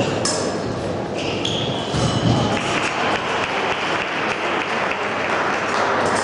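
Busy fencing-hall din: a steady crowd hubbub with scattered clinks of épée blades. About a second in, a steady high electronic tone of a fencing scoring machine sounds for over a second, and a low thud falls about two seconds in.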